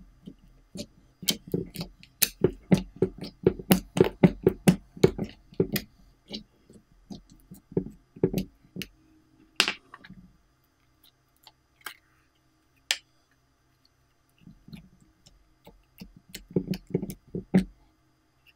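Slime being pressed and squished by hand: a quick run of wet clicks and pops as air pockets in it are squeezed out, then a few separate clicks, and another run of squishing pops near the end.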